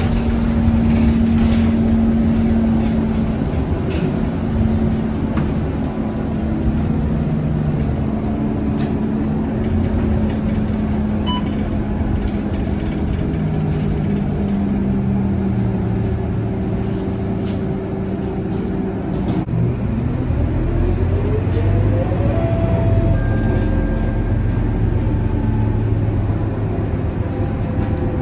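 Interior drone of a Scania K230UB city bus under way: its 9-litre five-cylinder diesel engine and drivetrain running steadily, with road rumble. About two-thirds of the way in the engine note drops, then rises steadily as the bus picks up speed again.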